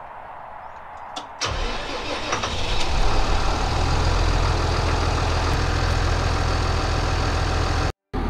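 Tractor's diesel engine starting about a second and a half in, then settling into a steady idle. The sound drops out completely for a moment near the end.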